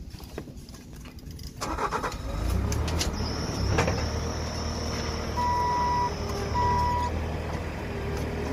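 A vehicle engine running steadily, building up about two seconds in. About halfway through come two beeps of a backup alarm, and a high whine sounds for a few seconds.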